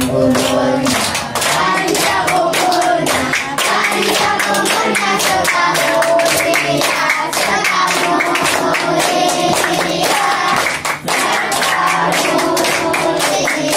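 A roomful of children clapping their hands in a steady rhythm while singing together, led by a man on a microphone.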